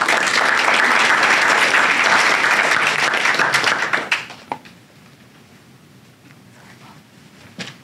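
Audience applauding, fading out after about four seconds, followed by a few light knocks.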